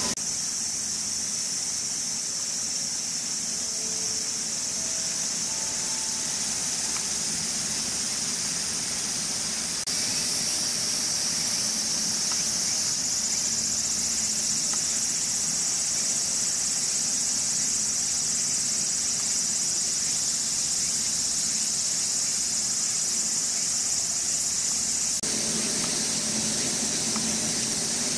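A steady, high-pitched chorus of insects, shrilling without pause. It changes suddenly about ten seconds in, growing stronger and slightly lower, and changes again near the end.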